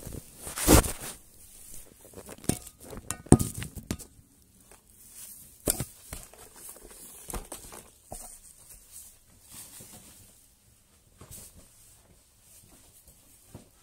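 Cleaning and handling noises: rustling and brushing as a feather duster is worked over a hard-shell suitcase, with scattered knocks and two louder bumps in the first few seconds.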